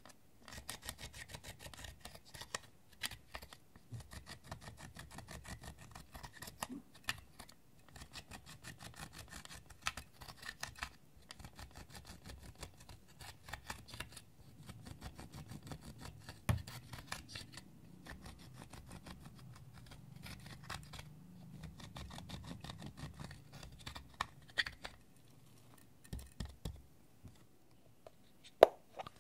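A metal-tipped tool scraping and crumbling pressed eyeshadow out of a plastic palette in quick, dense scratchy strokes. Near the end the scratching stops and a plastic case snaps open with one sharp click.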